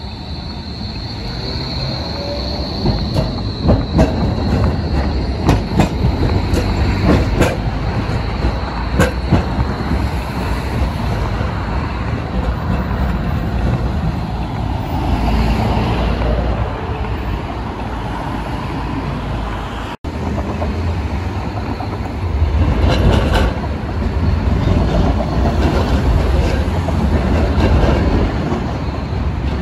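Bombardier Flexity low-floor trams running on street track: the first passes close by with a high steady wheel squeal, then clicks and knocks as its wheels cross rail joints. Later a second tram clatters over junction track, with rumble from road traffic around it.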